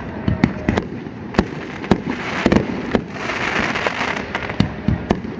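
Aerial fireworks bursting: a rapid, irregular string of sharp bangs and pops, with a stretch of steadier hiss about three seconds in.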